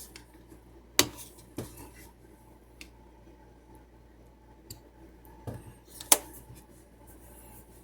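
Kitchen utensils and containers being handled, giving four sharp clinks and knocks: two about a second in, two more around five and a half to six seconds.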